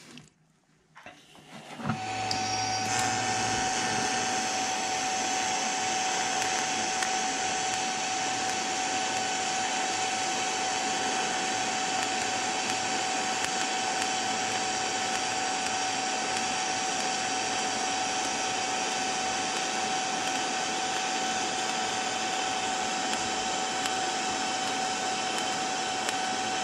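TIG welding arc on steel, argon-shielded, with filler rod dipped into the puddle: it strikes about two seconds in and then burns with a steady hiss and a steady whine.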